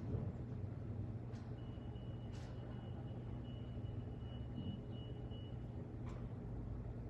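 Steady low room hum with a few faint, isolated clicks: one about a second in, one near the middle and one near the end. A faint thin high whine sounds through the middle.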